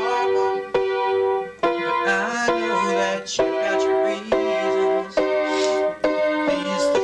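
Piano-led music, chords struck about once a second.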